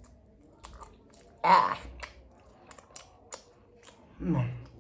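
A person eating: faint scattered mouth clicks of chewing, broken by a short loud vocal exclamation about a second and a half in and a brief falling-pitched vocal sound near the end.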